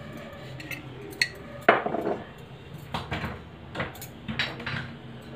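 Kitchenware clinking and knocking about five times, as utensils and spice containers are handled while cooking. The loudest clink comes a little under two seconds in.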